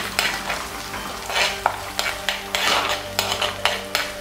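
Garlic, ginger and curry leaves frying and sizzling in hot coconut oil as a metal spoon stirs and scrapes them around a black chatti pot, about three scraping strokes a second.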